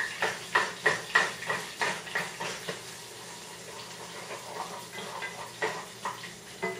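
A spoon stirring a cooking pot of chickpea purée, knocking against the pot about three times a second for the first few seconds, then easing to a few faint taps.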